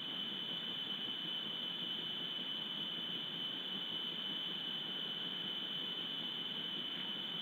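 A steady high-pitched whine over a faint hiss, with no other events: the electronic self-noise of a wildlife camera's audio recording.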